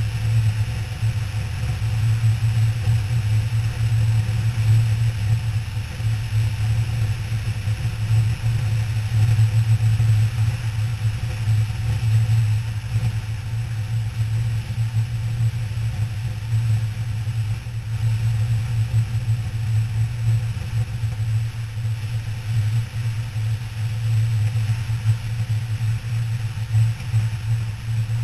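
KTM 990 Adventure R's V-twin engine running at a steady cruise, mixed with wind rush, picked up by a helmet-mounted camera. A steady low drone with no gear changes or revving.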